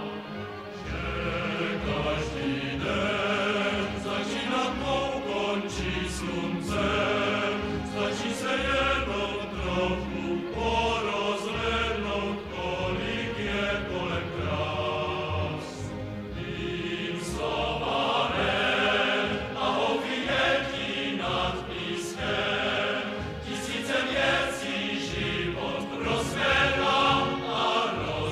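Music: a song with singing over accompaniment and a steady beat.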